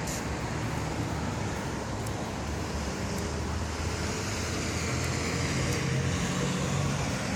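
Steady road traffic noise from passing cars, with a low engine hum that swells a little in the second half.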